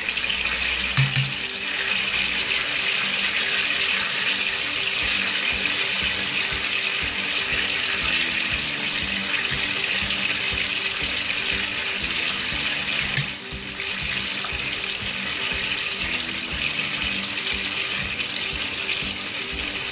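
Hot oil sizzling steadily as spoonfuls of bean batter for akara deep-fry in a pan, with a brief dip in the sizzle about two-thirds of the way in.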